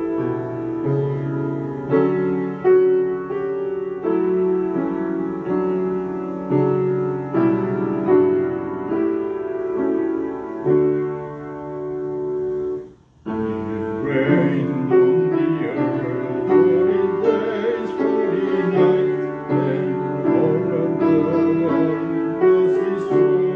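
Piano playing the introduction to a hymn in slow, sustained chords. The playing stops briefly about 13 seconds in, then resumes with a fuller sound.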